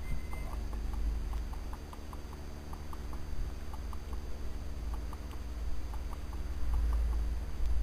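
Low wind rumble on the microphone, with faint, irregular short ticks scattered through it.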